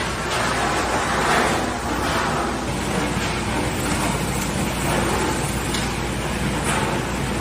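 Automatic packaging line machinery running: a steady mechanical hum and whir with gentle swells every second or so.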